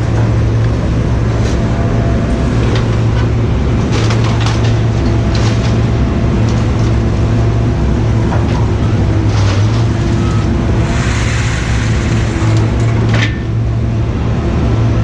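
An engine running steadily at a constant low hum, with scattered metallic clicks and knocks and a brief hiss about eleven seconds in.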